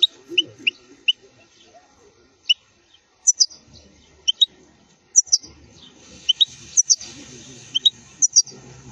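European goldfinch singing in short, sharp, high chirping notes, many of them in quick pairs, coming every second or so.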